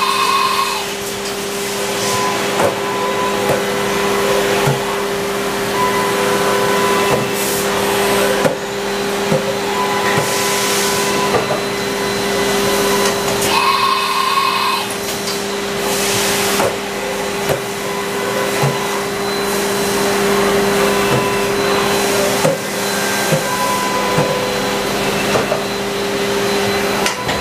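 Haas VF-3SS CNC vertical machining center running: a steady mechanical hum over a hiss, with scattered light clicks and a brief higher chirp about halfway through. The higher of the two hum tones cuts out near the end.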